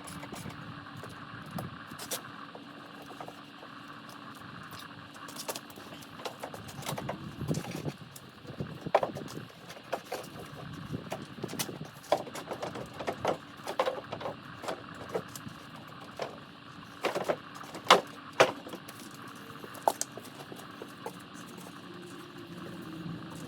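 Irregular clinks and knocks of tools and metal parts being handled, over a steady low hum. The knocks come thicker from about a third of the way in, with the sharpest pair about three quarters through.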